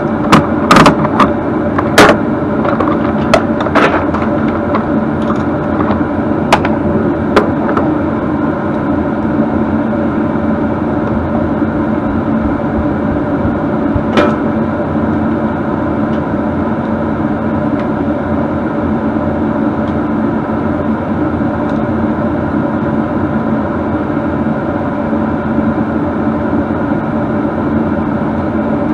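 A steady motor hum with a few fixed pitches, running throughout. Sharp knocks and clicks, like metal parts or tools being handled, come several times in the first eight seconds and once more about fourteen seconds in.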